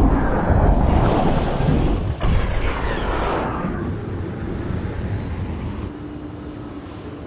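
Fighter jet roar, a loud, deep rumbling rush that surges again about two seconds in and then slowly fades.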